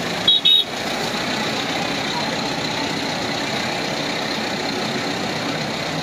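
Steady engine and road noise from an open, canopied rickshaw travelling along a wet street. About half a second in there is a brief, loud, high double beep.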